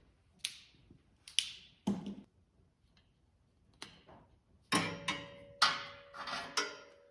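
Hand tools and metal hardware clicking and knocking while a terminal end is worked onto a copper battery cable: a few separate clicks, then a quicker run of them in the second half.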